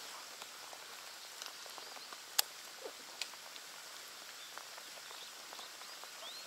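Light rain falling on open lake water: a steady soft hiss of drops on the surface with scattered small ticks, and one sharp click about two and a half seconds in.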